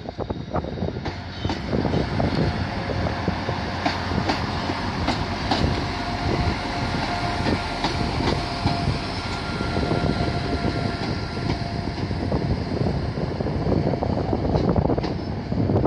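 Transport for Wales Class 175 diesel multiple unit passing close by, its diesel engines running under a steady rumble. Scattered clicks come from the wheels over rail joints and points, and a thin steady whine is heard through the middle.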